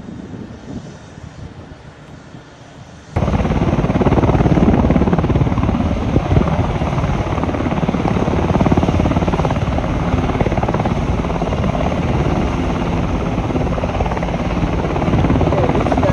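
Helicopter hovering low over water: loud, steady rotor and engine noise that starts suddenly about three seconds in, after a quieter stretch of wind.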